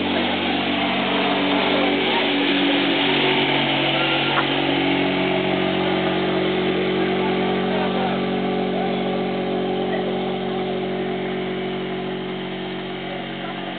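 Mercury 5 HP outboard motor driving an inflatable boat at speed: a steady drone whose note shifts about four seconds in and fades over the last few seconds as the boat moves away.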